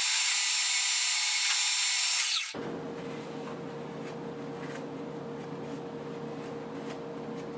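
A loud, high-pitched machine whine made of several steady tones cuts off abruptly about two and a half seconds in. A metal lathe's spindle then runs with a steady hum while the turned steel rod is rubbed with emery cloth to clean up the fresh thread.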